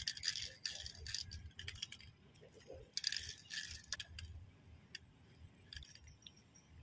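Plastic bag crinkling and rustling in irregular bursts of crackly clicks as chicken intestines are handled in it.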